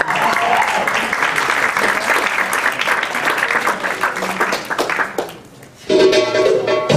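Audience applauding after the dancer is introduced, fading out about five seconds in. Belly dance music starts about six seconds in.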